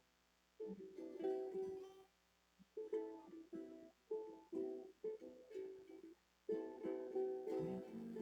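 Acoustic guitar strummed in chords, one stroke or a short run of strokes at a time with brief gaps between them, playing a sad song without singing.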